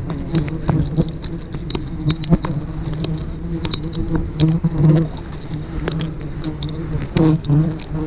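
Wild honeybees buzzing close around the microphone, a steady hum that swells and fades, with scattered sharp clicks and crackles over it.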